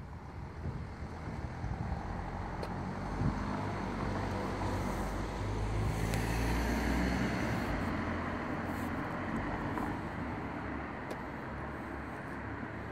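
A road vehicle passing: a low engine rumble and tyre noise swell to a peak about halfway through, then fade away.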